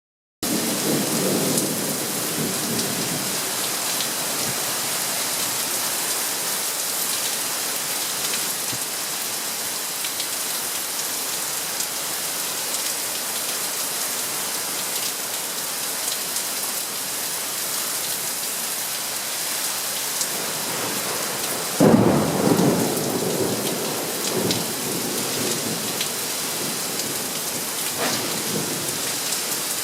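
Steady rain in a thunderstorm, with a low rumble of thunder in the first few seconds. About two-thirds of the way through comes a sudden, louder thunderclap that rolls on for a few seconds.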